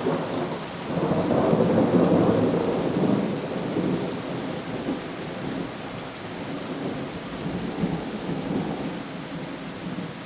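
A thunderstorm: a long roll of thunder swells about a second in, is loudest around two seconds and dies away over the next couple of seconds, with lighter rumbles later, all over steady rain.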